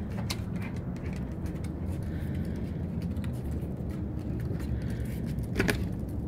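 Light taps and scrapes of a Yorkshire terrier nosing a rubber balloon across wooden deck boards, over a steady low outdoor rumble, with one louder sharp knock about five and a half seconds in.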